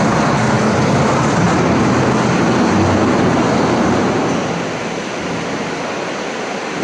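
Steady loud machinery noise, a rushing hiss over a low hum, easing somewhat about four and a half seconds in.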